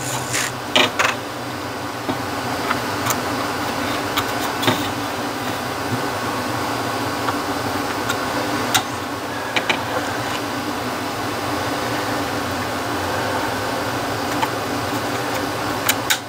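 Steady whirr of room ventilation, with scattered light clicks and taps as a gauge-cluster circuit board and its new stepper motors are handled and pressed into place.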